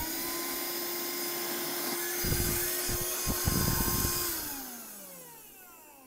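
SilverCrest 12 V cordless wet & dry handheld vacuum cleaner running at full speed with a steady motor whine, with some low rumbling bumps in the middle. About four seconds in it is switched off, and the whine falls in pitch and fades as the motor winds down.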